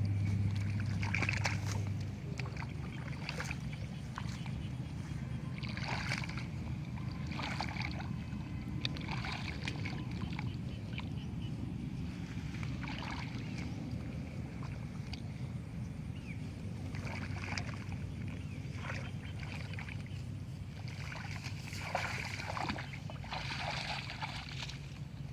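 Water splashing and sloshing in irregular short bursts over a steady low hum.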